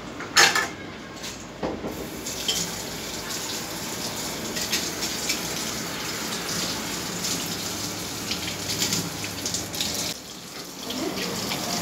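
Tap water running into a stainless-steel sink while a knife is rinsed under it, after a sharp clatter about half a second in and a smaller knock near two seconds. The flow stops briefly near the end as the tap is turned, then runs again.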